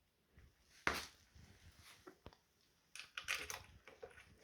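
A few sharp clicks and knocks of bolts and hand tools being handled while fitting bolts to the scooter. The loudest knock comes about a second in, and a quick cluster of clicks follows around three seconds in.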